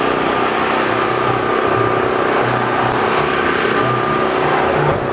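A car engine running close by, over a dense, steady background noise.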